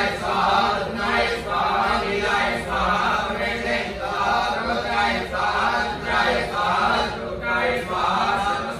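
Men's voices chanting Sanskrit homam mantras in short, even-pitched phrases, one after another.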